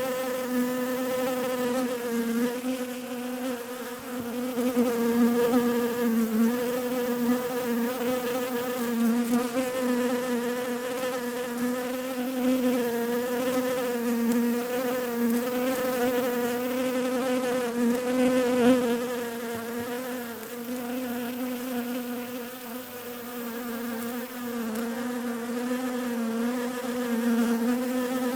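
Bees buzzing: a steady, slightly wavering drone that eases a little in loudness about three quarters of the way through.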